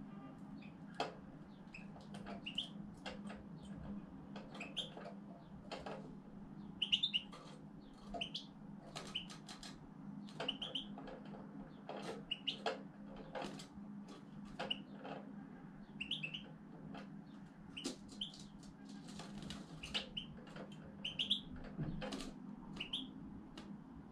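European goldfinch chirping in its cage: short high call notes repeated every second or so, mixed with many sharp clicks.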